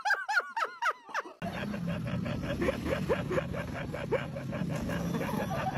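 A person laughing in a quick run of short bursts, which cuts off abruptly about a second and a half in. A steady, busy noise with a fast, even pulse follows.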